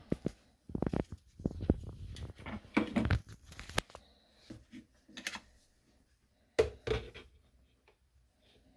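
Handling noise of a food thermometer being readied to check the kettle water: irregular clicks, knocks and rustling for the first four seconds, then a sharper double knock about six and a half seconds in.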